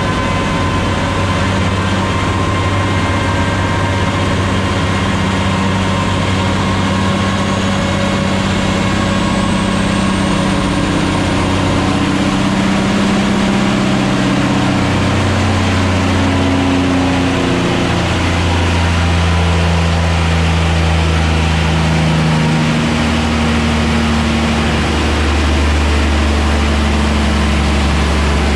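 Caterpillar 6NZ (C15) inline-six diesel running loud and steady under load during a chassis dyno pull, fed by an auxiliary FASS fuel pump in a test of a fuel-pressure stutter. A faint high whine rises in the first half, and the engine note shifts about halfway through.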